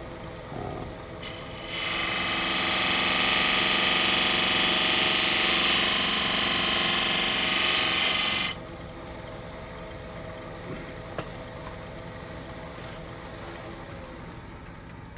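Benjamin's Best 2 mm beading tool cutting into a spinning wood blank on a Robust lathe: a loud, even scraping hiss starts about two seconds in and runs for about six and a half seconds, then stops sharply. The lathe's steady motor hum runs under it and on after the cut.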